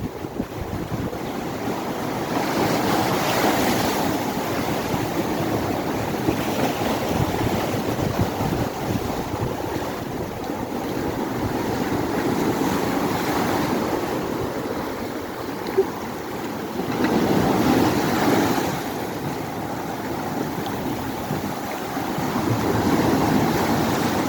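Rough storm surf breaking on a beach, the noise of the waves swelling and falling in slow surges every several seconds, with wind buffeting the microphone.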